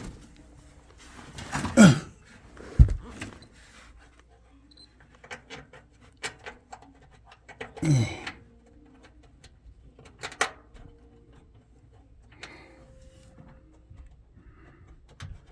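Scattered clicks, taps and knocks of a socket driver and a part being handled in the tight space inside a dryer's metal cabinet, with a dull thump about three seconds in and a couple of short grunts or exhales.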